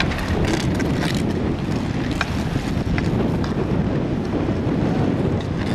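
Wind buffeting the camera microphone as a steady low rumble, with a few faint clacks from the street-hockey play on the asphalt.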